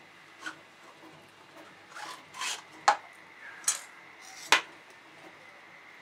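Handling of a freshly set plaster investment mould with a steel knife: a short rasping scrape about two seconds in and a few sharp clacks of the knife and plastic mould sleeve against the plaster and tabletop.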